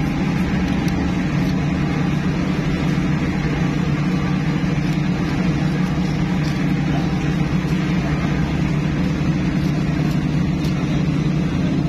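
A steady low engine-like drone throughout, with faint scratchy ticks of a knife scraping scales off a large carp.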